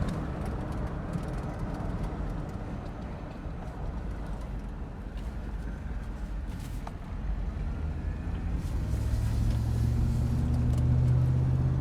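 GMC vehicle under way on a test drive: a steady low engine and road rumble, with the engine drone growing louder about three-quarters of the way through.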